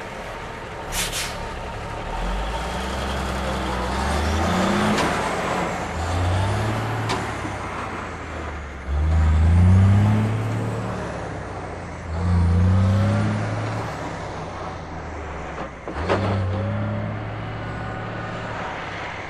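Semi truck's diesel engine pulling away and accelerating through the gears, its note rising several times and dropping back at each shift, with a short air-brake hiss about a second in.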